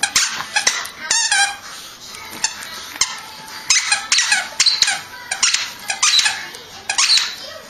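A plush squeaky toy squeaking over and over in short runs of high, wavering squeaks as a small dog chews and shakes it.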